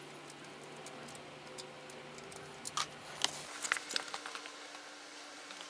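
Sump plug coming free by hand and engine oil starting to run into a drain pan, heard as faint clicks and patter beginning about halfway through, over a low steady hum.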